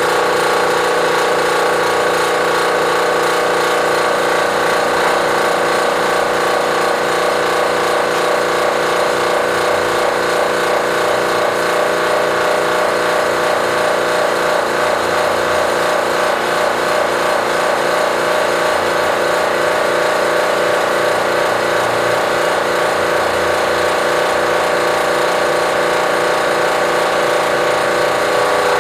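Air compressor running steadily: a continuous mechanical drone with a fast, even rattle through it.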